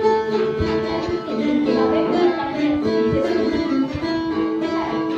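A phin, the Isan plucked lute, playing a melody of plucked notes over a steady drone, with a few low thuds under it.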